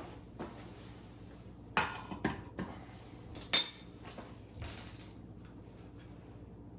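A handful of sharp metallic clinks and knocks spread over a few seconds. The loudest, about halfway through, has a short bright ring, and another near five seconds leaves a brief high ringing tone.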